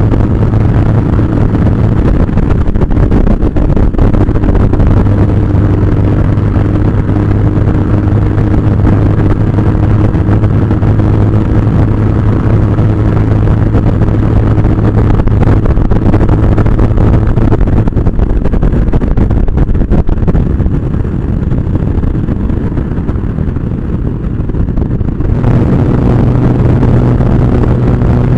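Motorcycle engine running steadily at highway speed, with rushing air noise. It eases off about twenty seconds in and picks up again with a change of pitch near the end.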